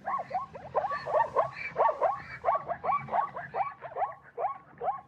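Zebra calling: a long run of quick, rising-and-falling barking calls, about four a second.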